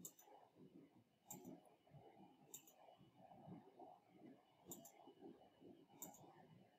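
Faint computer mouse clicks, five in all, spaced one to two seconds apart, over quiet room tone.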